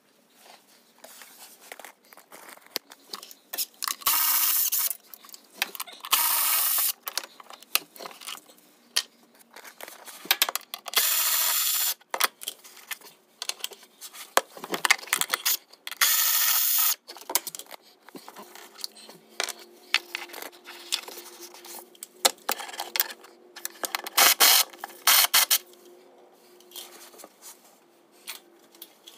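A cordless power tool runs in about five short bursts of roughly a second each, backing out fasteners, with small clinks and rattles of tools and bolts in between.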